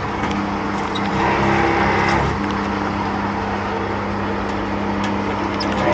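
High-flow HGV diesel pump running steadily with a constant hum as it dispenses fuel; the hum sets in at the start.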